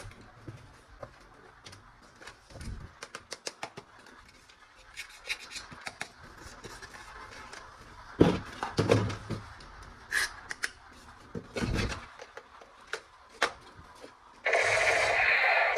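Plastic toy gun parts being handled, with scattered light clicks, knocks and rubbing and a few louder thuds. Near the end a loud continuous rattle starts suddenly, as from a battery-powered toy gun set firing.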